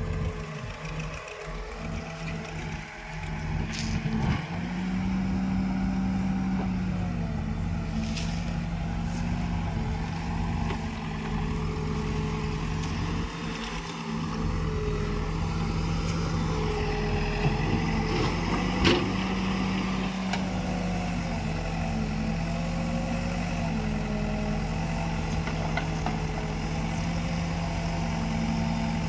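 Escorts Digmax backhoe loader's diesel engine running steadily under hydraulic load as the rear bucket digs earth and swings it over. Its pitch dips and rises with each move, with a few light clanks and one sharp knock about two-thirds of the way through.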